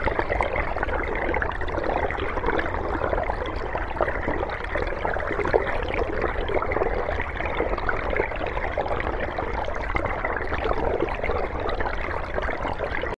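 Underwater ambience: a steady rush of bubbling, gurgling water with a low rumble underneath.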